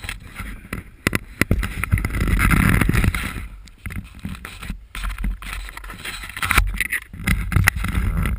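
Wind buffeting a wearable camera's microphone in a low rumble, loudest about two to three seconds in and again near the end, with many short knocks and rustles from handling as the landed parachute canopy and gear are gathered up.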